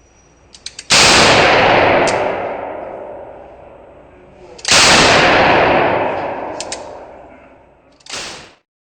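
Two loud gunshots about four seconds apart, each trailing off in a long rolling echo, with a few sharp metallic clicks around them and a shorter final blast that cuts off suddenly near the end.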